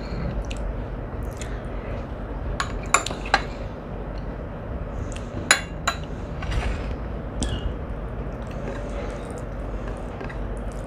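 Cutlery clinking against a plate during a meal, a handful of short sharp clinks spread over several seconds.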